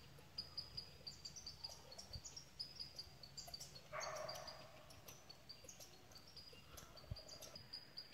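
Squirrels fighting: faint, high-pitched squeaks in quick, irregular succession, some flicking upward, with a short rustle about four seconds in.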